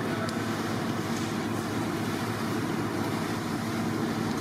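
Steady low mechanical drone that holds an even level throughout.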